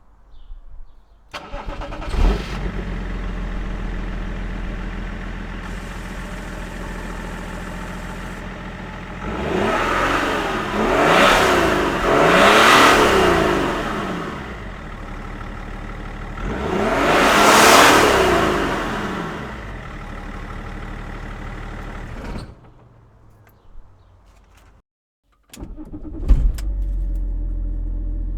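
BMW E46 330d's 3.0-litre inline-six diesel exhaust, with four holes drilled in the pipe just before the muffler. The engine starts, idles, and is revved several times, then is switched off. After a short silence it is started again and settles to idle.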